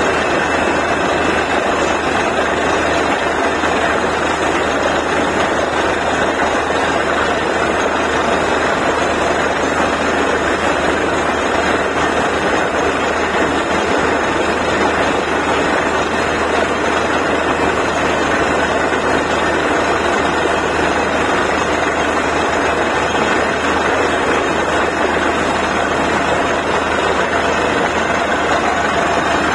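Borewell drilling rig running, a loud, steady mechanical noise that holds level without change.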